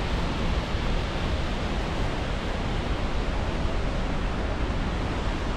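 Steady rushing roar of the Skógafoss waterfall, with wind gusting on the microphone.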